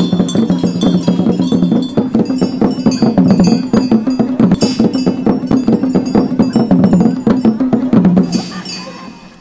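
West African percussion: fast, dense drumming with ringing metal bell strokes over a low sustained tone that steps between two pitches. It fades out near the end.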